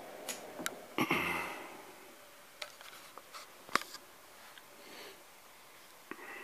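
Scattered clicks and taps of test leads and clips being handled and disconnected, the loudest click a little before four seconds in, with a short sniff about a second in.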